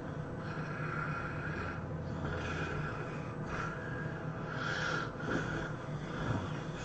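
A person snoring in their sleep: a run of rough, uneven breaths one after another, over a steady low hum.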